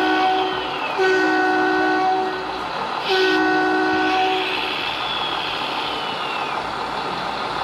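Horn from an RC model truck's sound module, blowing long chord-like blasts: one ending just after the start, one about a second in, and a longer one about three seconds in. A fainter high whistle falls in pitch twice alongside.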